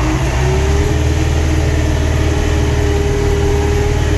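David Brown 1490 tractor's diesel engine heard from inside the cab on the move, its pitch rising over the first second as it picks up speed, then running steadily with a deep hum.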